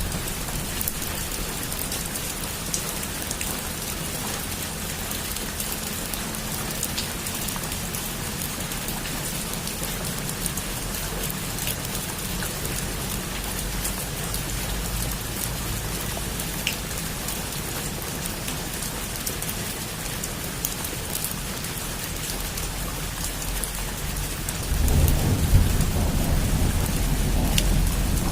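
Heavy rain falling steadily, with the pattering of individual drops and a low rumble of thunder. The thunder swells louder about three seconds before the end.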